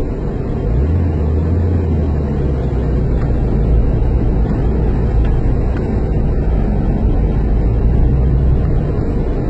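A motor vehicle's engine running steadily, heard as a loud low drone with a rumble, a deeper steady tone holding from about a second in until shortly before the end.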